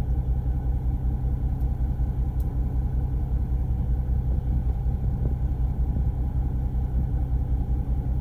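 Fishing boat's engine running steadily, a low even rumble.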